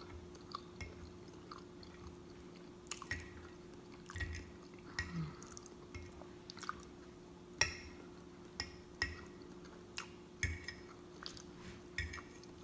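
Close-miked chewing with irregular wet lip smacks and mouth clicks, a person eating with an open mouth. A faint steady hum runs underneath.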